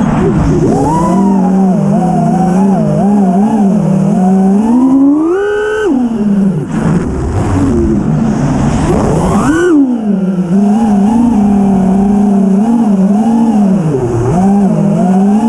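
Five-inch FPV freestyle quadcopter on 6S, its four iFlight Xing-E 2207 1800kv motors with 5-inch props whining in flight as picked up by the onboard camera. The pitch wavers with throttle and climbs sharply twice, about five and about nine seconds in, with a rush of air between the two climbs.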